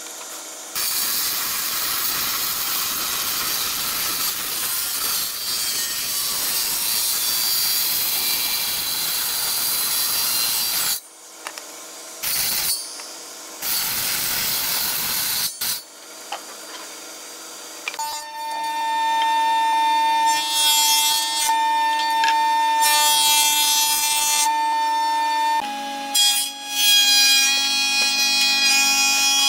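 Woodworking power tools cutting or sanding wood. First comes a long stretch of steady, high hissing cutting noise, then a few short bursts. After that a machine runs with a steady whine under bursts of cutting noise, and its pitch drops slightly near the end.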